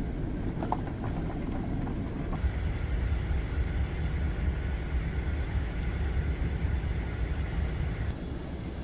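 Car being driven, its low steady rumble of engine and road noise, somewhat louder from about two and a half seconds in until near the end.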